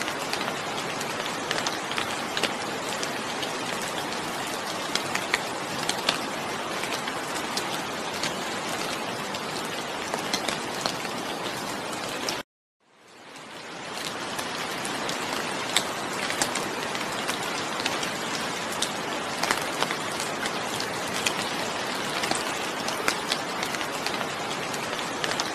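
Steady rainfall with many individual drops ticking on a surface. About halfway through the sound cuts out suddenly and then fades back in over a second or two.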